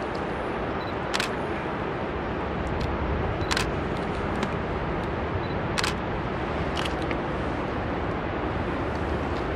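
Steady rush of the Genesee River's waterfall below the viaduct, broken by about four sharp clicks.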